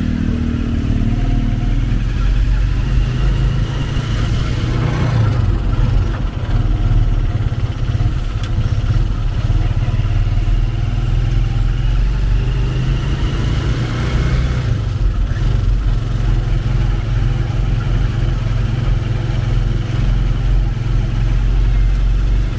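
Motorcycle engine of a tricycle (motorcycle with sidecar) running steadily under way at low speed, a constant low drone heard from the sidecar.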